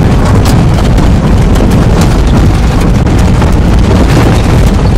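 Vehicle driving over a rough dirt road, heard from inside: a loud, steady rumble with frequent rattles and knocks.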